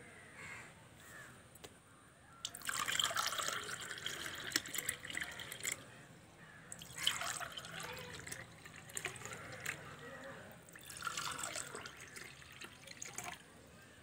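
Thin spiced buttermilk (neer mor) poured from a bowl into glass tumblers, one glass after another. It comes in several separate pours with short pauses between them.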